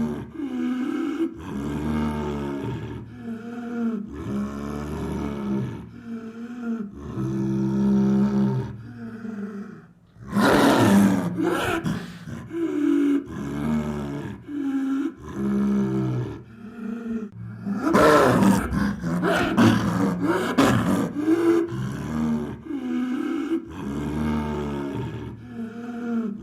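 Leopard snarling and growling at close range: a string of short, low, rasping growls with breaths drawn in between. Two louder, hissing snarls come about ten and eighteen seconds in.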